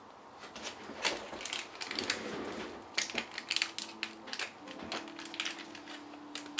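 A crinkly snack wrapper being crumpled and handled, giving a run of sharp crackles. Soft lofi background music comes in about three seconds in.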